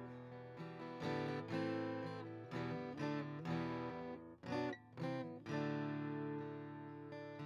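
Soft instrumental music on acoustic guitar, notes plucked and strummed and left to ring, with a couple of short breaks about halfway through.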